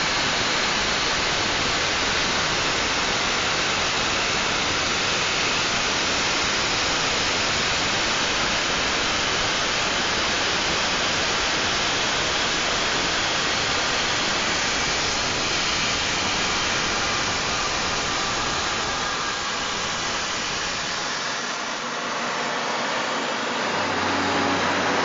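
CNC milling machine running: a steady, even rushing noise with no clear pitch. The deepest rumble drops away about twenty seconds in.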